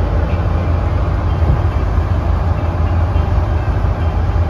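A boat under way at speed: a steady low engine rumble mixed with the rush of water and wind.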